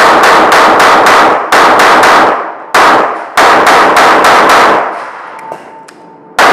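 Rapid strings of semi-automatic pistol shots, about four a second, echoing off the concrete walls of an indoor range, with steel falling plates clanging as they are hit. The firing stops for a little over a second about five seconds in, then starts again near the end.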